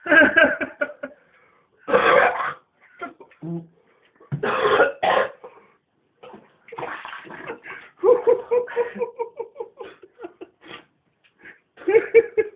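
A man coughing and spluttering hard, his mouth burning from a very hot curry, with strained, gasping breaths between the coughs and a run of quick, short gasps in the second half.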